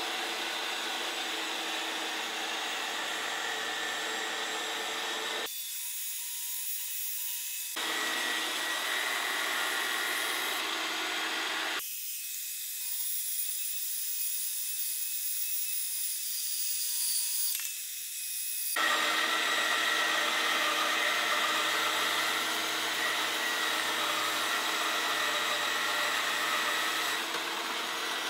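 Mafell Z5Ec portable bandsaw running and cutting into a thick timber beam, a steady motor whine with the rasp of the blade in the wood. The tone changes abruptly a few times, thinning out for a few seconds at a time.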